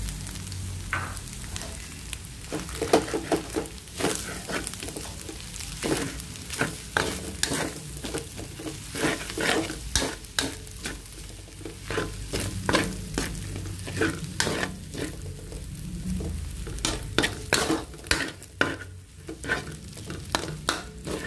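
Metal spatula stirring and scraping ham and egg fried rice around a wok, with irregular scrapes and taps against the pan several times a second over a light sizzle from the frying rice.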